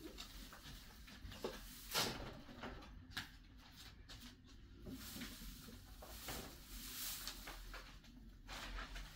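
Hay and cage bedding being handled: faint rustling with scattered light knocks, the loudest about two seconds in.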